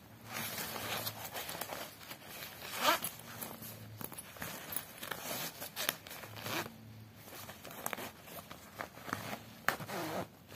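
Zips on a fabric travel bag being pulled open and shut in several short rasping strokes, the loudest about three seconds in, with the nylon fabric rustling as it is handled.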